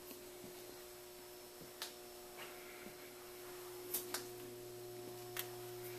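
A steady low electrical hum with a few sharp light clicks, two of them close together about four seconds in.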